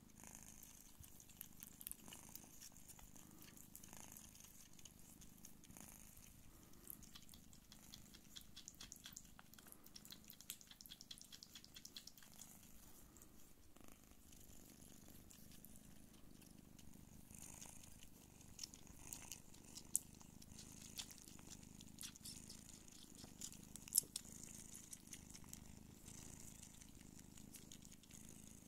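Don Sphynx cats purring softly and steadily while the kittens nurse, with faint wet clicks of suckling. Two sharper clicks come later, about four seconds apart.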